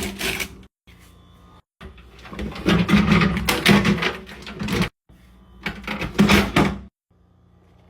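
Rustling and clattering of produce packaging and containers being handled and put into a fridge, in several bursts that start and stop abruptly.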